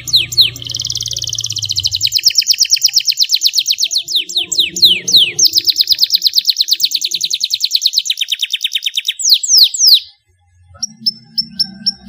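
Domestic canary singing a long, fast song of rapid trills, mostly quick repeated notes sweeping downward. The song breaks off suddenly about ten seconds in, followed by a few short high chirps.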